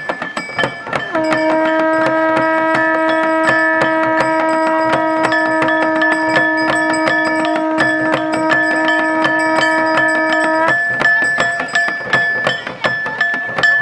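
Dhol and damau drums beaten in rapid, dense strokes. About a second in, a conch shell (shankh) is blown in one long steady note that holds for about nine seconds and then stops.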